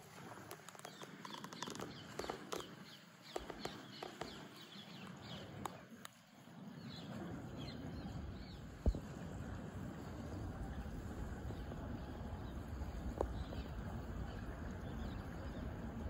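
Outdoor ambience by a small river: scattered light clicks and faint, short, high bird chirps, then a steady low rumble that sets in about seven seconds in.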